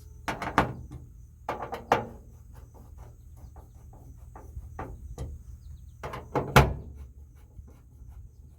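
Sharp clicks and knocks in short clusters from hand work on a pickup truck's door, the loudest about six and a half seconds in.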